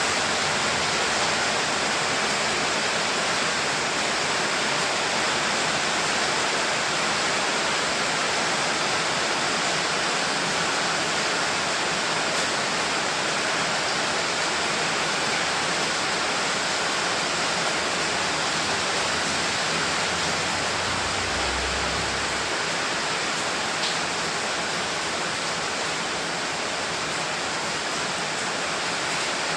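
Rain falling steadily, an even hiss of water that does not change, with a brief low rumble a little past two-thirds of the way through.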